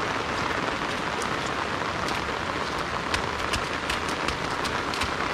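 Heavy rain falling steadily, a dense even hiss, with scattered sharp ticks running through it.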